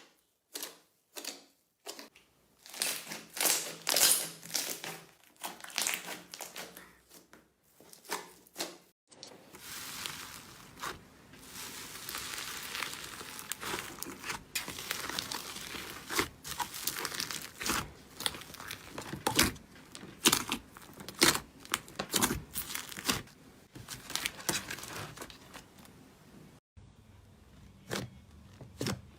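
Slime being squeezed and stretched by hand, crackling with many sharp popping clicks, denser for several seconds in the middle.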